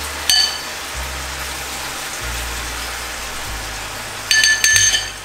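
Sauce sizzling steadily in a hot frying pan as it is spooned over frying salmon, with a metal spoon clinking against a ceramic bowl while scraping the sauce out: once just after the start and several quick clinks near the end.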